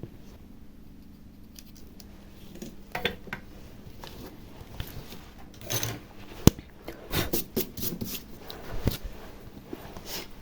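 Small clicks and rustles of hands and tools at work as new adhesive is applied to a tablet's frame, with one sharper click about six seconds in.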